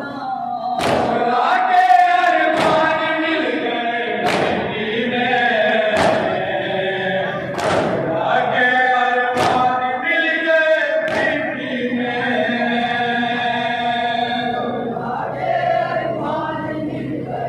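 A group of men chanting a noha (Shia lament) in unison. Rhythmic chest-beating (matam) slaps cut through it as sharp strikes every couple of seconds, plainest in the first half.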